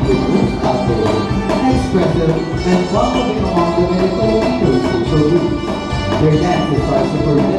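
Live folk-style music from a stage ensemble at a Philippine cultural show, steady throughout and heard from far back in a large hall.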